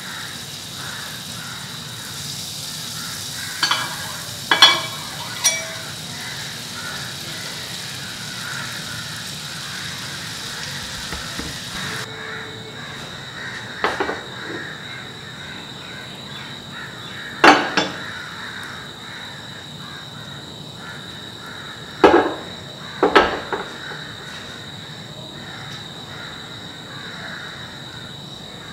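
Butter melting and foaming in a hot nonstick frying pan, sizzling steadily. A few short, sharp, louder sounds cut in over it in groups of two or three.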